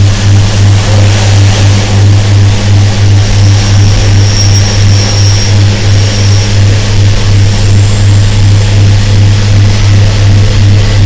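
Train engine running steadily, loud, with a deep, even hum and a regular throb. A faint high-pitched whine rides over it for a few seconds in the middle.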